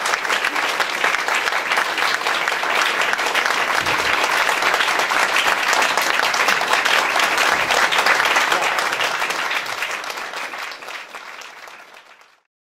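Audience applauding with steady clapping that fades away near the end.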